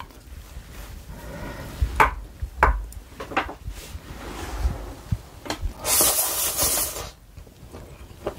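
Metal chopsticks lifting sticky japchae glass noodles, with a couple of sharp clicks about two seconds in. Near the end comes a loud slurp of about a second as the noodles are sucked into the mouth.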